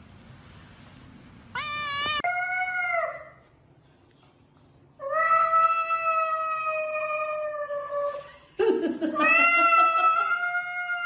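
Cat yowling in three long, drawn-out calls, the first wavering in pitch, the last with a low growl beneath it: angry threat yowls at another cat.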